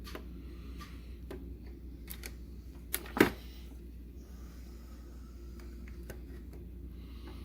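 Handling noises from plastic welding on a plastic tripod part: scattered light clicks and taps, with one sharp knock about three seconds in, over a steady low hum.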